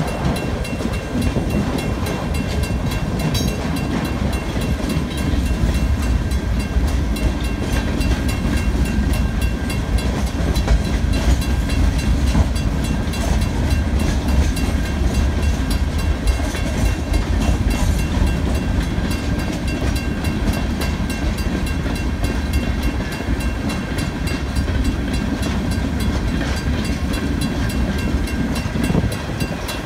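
Freight cars rolling steadily through a level crossing, a low rumble of steel wheels on the rails, with the crossing signal's bell ringing above it.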